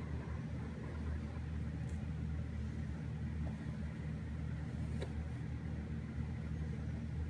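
A steady low mechanical hum, with a faint click about five seconds in.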